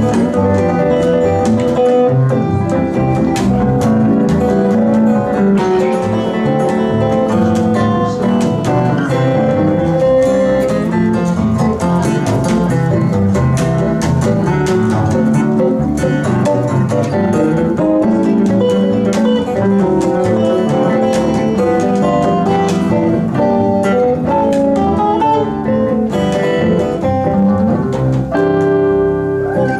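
Guitars playing an up-tempo fingerpicked instrumental together, with a busy picked melody over a bass line.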